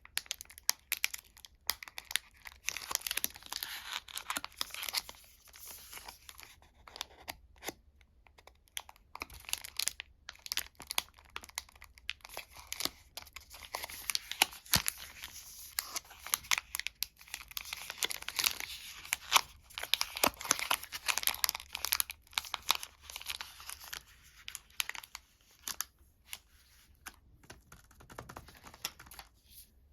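Sweet and chocolate wrappers being torn open and crinkled by hand: dense, irregular crackling with short pauses.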